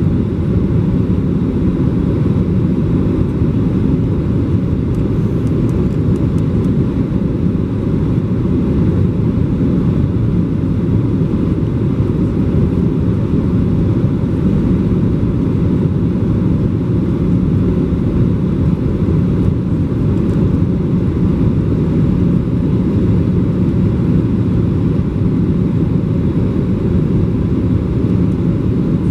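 Steady cabin noise inside a Boeing 737-800 on approach with flaps extended: the rumble of the CFM56 engines and the airflow past the fuselage, low-pitched and unchanging.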